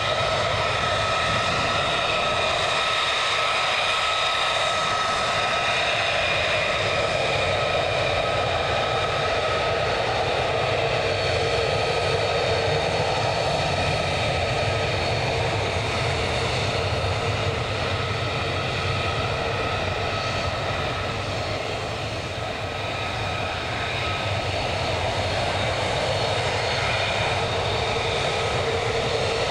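F-35A fighter's Pratt & Whitney F135 turbofan running at taxi power: a steady jet whine with several high, even tones over the roar. It dips slightly about three-quarters of the way through.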